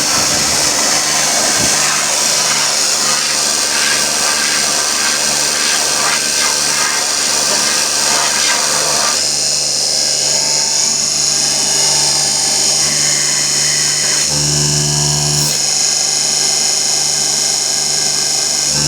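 Becker 7.5 hp electric compressor running steadily with a continuous machine whine and hiss. About nine seconds in, the rougher noise eases off, and around fourteen and a half seconds a deeper hum swells for about a second.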